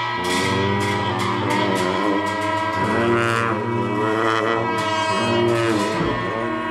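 Tibetan Buddhist monastic ensemble of giant dungchen long horns: a deep drone that thins out just after the start, under wavering higher horn or reed lines and repeated percussion strikes.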